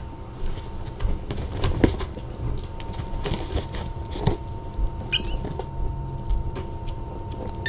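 Kittens playing: scattered soft thumps, scuffs and patter of small paws and toys on the pen floor, with a brief high squeak about five seconds in.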